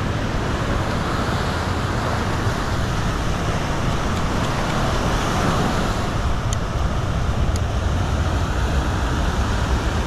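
Steady rumbling noise of wind and surf on the microphone, with two faint light clicks about a second apart past the middle.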